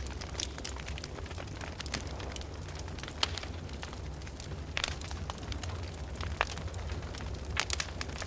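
Open fire burning in a fireplace, crackling with irregular sharp pops over a steady low rumble of the flames.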